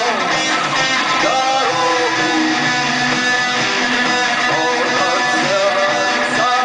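Instrumental guitar rock: strummed guitar under a lead guitar line with bent, gliding notes.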